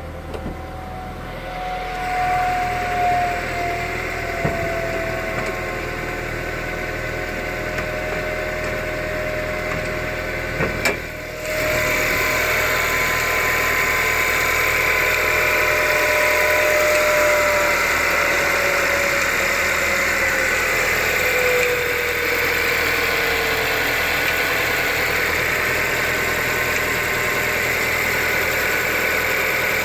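Lancia Delta III's 1750 TBi turbocharged four-cylinder petrol engine idling, with a thin tone that slowly falls in pitch over about twenty seconds. About eleven seconds in there is a click, and after it the engine is louder. The owner counts this strange sound as a fault, together with a loss of power.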